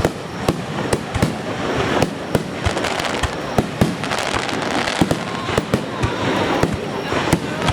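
Aerial fireworks bursting in a rapid, irregular string of sharp bangs over a continuous crackle.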